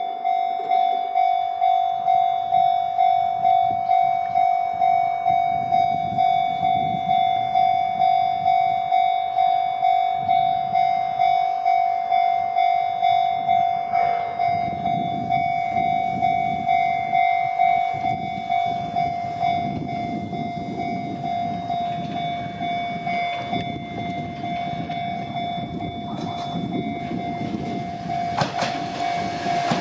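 Japanese level-crossing warning bell ringing in a fast, steady rhythm. An Odakyu 50000-type VSE Romancecar train rumbles through, its noise building through the second half until the bell's strikes are hard to pick out, with wheel clicks over rail joints near the end.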